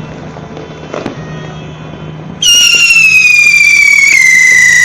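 Firework spinner wheel's whistle starting abruptly about halfway through: a loud, shrill whistle sliding slowly down in pitch. Before it come faint scattered pops and crackles.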